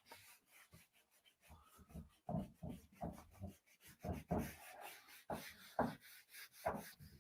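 A string of faint, short, irregular rubbing and scraping strokes.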